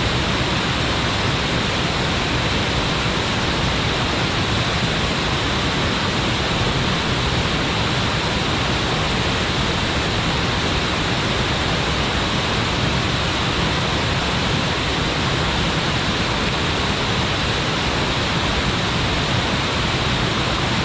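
Waterfall crashing into its plunge pool: a loud, steady rush of falling water that does not change.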